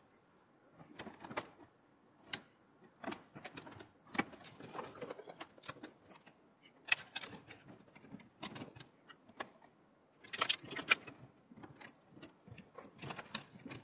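SATA data cables being handled and plugged into hard drives and a motherboard: scattered faint clicks, taps and cable rustling, with a busier cluster of clicks about ten seconds in.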